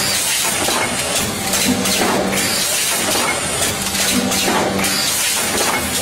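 Rotary pouch packing machine running, with repeated hissing from its pneumatic air exhausts over a steady mechanical clatter.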